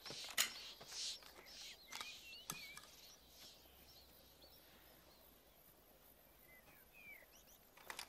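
Small birds chirping, busiest in the first few seconds and again shortly before the end, with a few sharp clicks: one about half a second in, one a little later, and a cluster at the very end.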